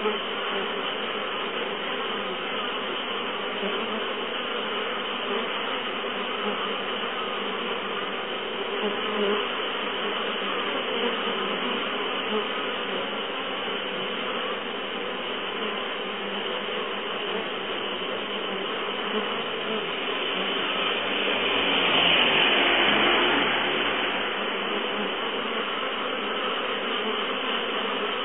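Many honeybees buzzing in a steady, dense hum as young bees make their orientation flights in front of the hive (toki-sawagi). About twenty seconds in the hum swells louder for a couple of seconds as bees pass close.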